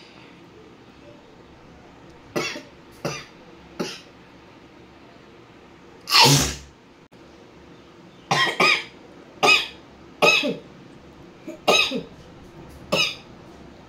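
A woman sneezing and coughing: three small coughs, one loud sneeze about six seconds in, then a run of about seven short voiced coughs.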